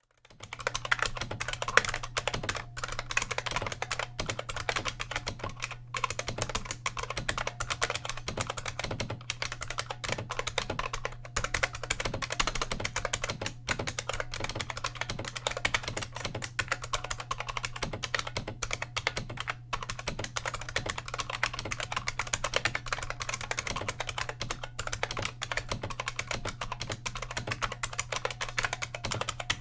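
Fast, continuous typing on an IBM Model M keyboard: the buckling springs give a sharp click with every keystroke, with only brief pauses. The keyboard is bolt-modded and its space bar stabilizer is greased.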